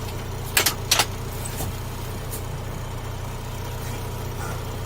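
Rubber-tyred backhoe's diesel engine idling steadily. A few sharp clicks and knocks come in the first second or two, the loudest sounds here.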